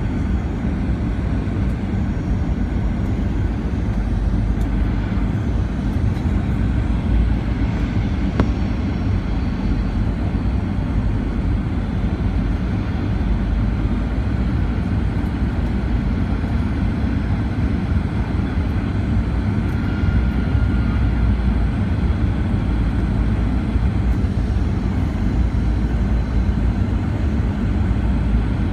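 Airliner cabin noise heard from a window seat: a steady low rumble of the engines and rushing air during the approach descent.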